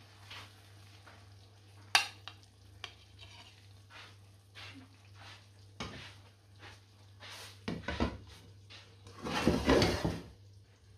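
A spoon stirring and scraping in a cooking pan: scattered clinks and knocks of the utensil against the pan, a sharp knock about two seconds in, and a louder stretch of scraping near the end.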